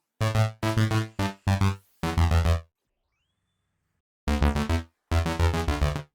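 Electronic intro music: stuttering synthesizer phrases in short chopped blocks, with a pause of about a second and a half in the middle.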